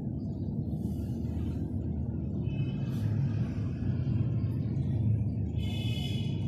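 Background music over a steady low rumble, with bright high tones entering about halfway through and again more strongly near the end.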